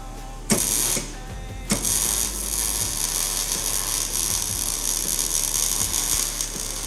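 Millermatic 200 MIG welder arc: a short half-second tack about half a second in, then a longer crackling bead of about five seconds, as hinge pieces are welded onto a tractor cab door.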